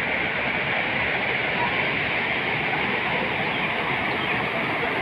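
Flood water rushing, a steady unbroken noise.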